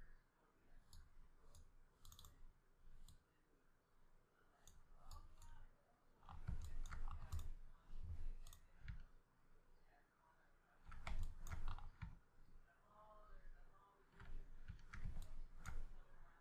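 Computer mouse and keyboard clicking in irregular clusters, some clicks with a dull thump.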